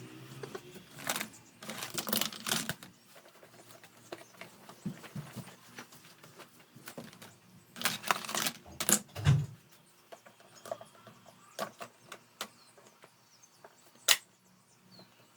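Irregular clicks and knocks of fan parts being handled, in small clusters with pauses between, and a single sharp click near the end.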